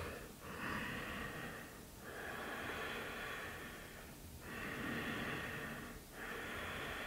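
A woman breathing slowly and audibly through a constricted throat, ujjayi breathing, while she holds a yoga pose. There are four long hissing breaths, in and out, each one and a half to two seconds, with only brief pauses between them.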